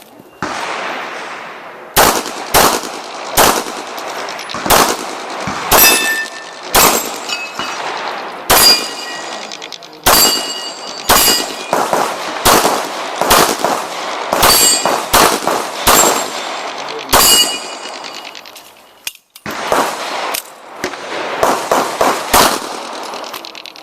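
Pistol shots fired at an uneven competition pace, about two dozen in some twenty seconds. Many are followed by the high ringing of struck steel targets. There is a short break about three quarters of the way through, then the shooting picks up again.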